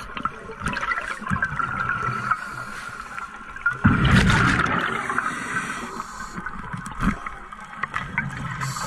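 Scuba diver breathing through a regulator underwater: a loud rush of exhaled bubbles about four seconds in, over a steady underwater hiss, with scattered small clicks.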